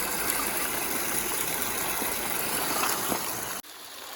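Battery-powered water pump running steadily with water rushing through the sluice box. About three and a half seconds in it cuts off suddenly to a quieter, steady sound of flowing water.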